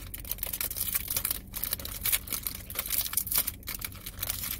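Clear plastic wrapper crinkling as fingers pick at it and pull it open: an irregular run of small, quick crackles.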